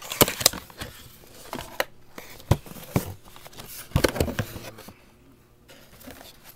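A product box and its packaging being handled and emptied: a run of sharp clicks, taps and rustles, which dies down about five seconds in.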